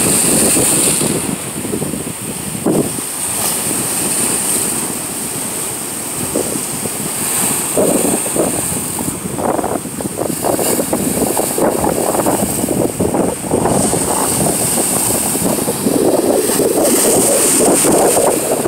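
Ocean waves breaking and washing over boulders at the shoreline, with wind buffeting the microphone. The surf swells in waves and is loudest near the end.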